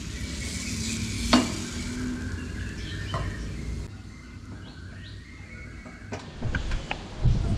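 Food sizzling in a hot pan, with one sharp clink of a utensil about one and a half seconds in. After about four seconds the sound drops lower, and a few light knocks and clatters follow near the end.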